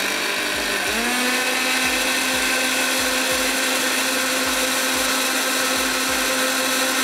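Electric kitchen blender running on a liquid mix of eggs and milk, a steady motor whine. Its pitch steps up slightly about a second in, then it holds steady.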